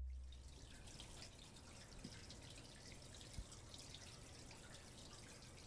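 Near silence: the low ring of a single deep hit dies away in the first half second, then only faint hiss with a few small ticks.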